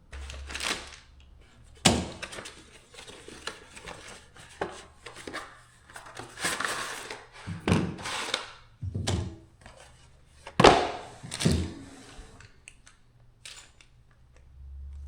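Handling noise as fishing rod holders are got ready: irregular knocks and thunks, the loudest about 11 seconds in, with rustling between them.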